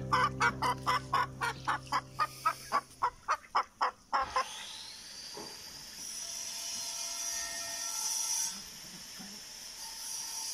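Domestic fowl calling: a run of short, evenly spaced clucks, about four a second, fading away over about four seconds, with the last of a held low music chord under them. After that there is only a faint steady hiss.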